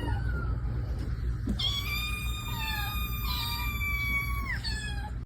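Kittens mewing: a short falling mew at the start, then one long high mew of about three seconds with shorter mews at other pitches over it.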